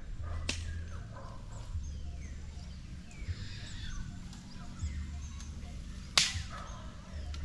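Outdoor ambience with faint bird chirps over a low rumble, broken twice by a sharp crack, once near the start and once, louder, near the end.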